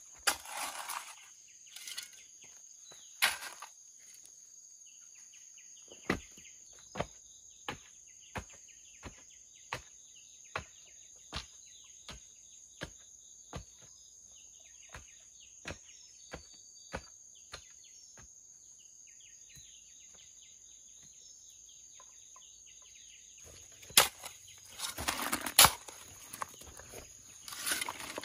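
A hoe blade scraping and scooping loose soil into a hole around a wooden post, with a run of even knocks about every three-quarters of a second in the middle as the earth around the post is worked down. More loud scraping and blade strikes come near the end, over a steady high insect drone.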